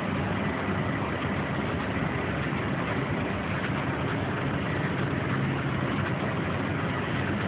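1993 Heidelberg GTOZ 52 two-colour offset printing press running, a steady, even machine noise with no change in pace.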